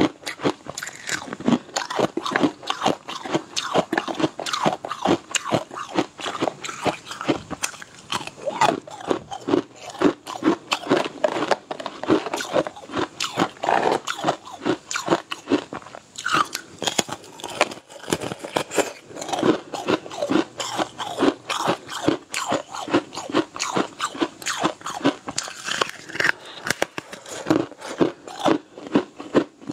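Close-up crunching and chewing as a person bites into and chews a crisp, thin pastry sheet. It is a steady run of sharp crunches, several a second.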